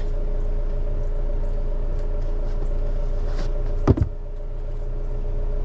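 Steady hum of a car idling, with one sharp thump about four seconds in.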